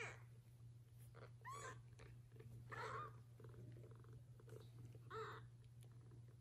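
A kitten mewing: about four short, high-pitched mews spaced a second or two apart, over a steady low hum.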